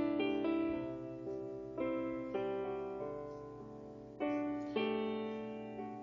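Slow piano music: chords struck a few times and left to ring and fade away.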